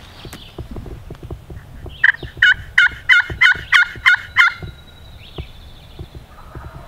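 Wild turkey gobbler gobbling once, a rapid rattling run of about eight notes lasting a couple of seconds, starting about two seconds in.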